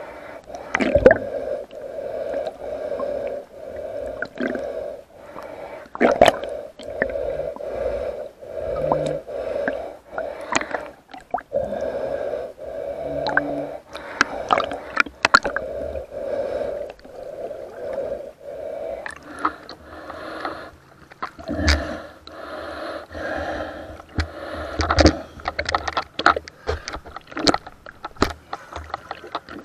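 A snorkeler breathing in and out through a snorkel, a breath every second or so, with scattered sharp clicks and knocks throughout.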